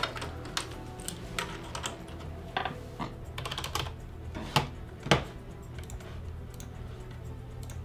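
Typing on a computer keyboard: irregular key clicks, thickest about three to four seconds in, with two louder clicks a little after four and a half and five seconds, then thinning to a few light taps. A low steady hum sits underneath.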